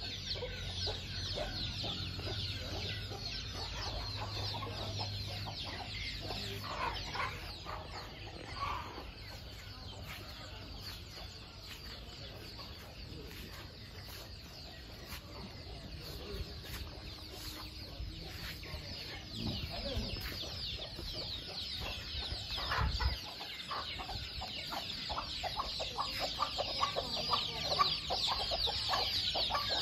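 Chickens clucking, with a busy chatter of short high-pitched chirps throughout. A brief low thump comes about three-quarters of the way through.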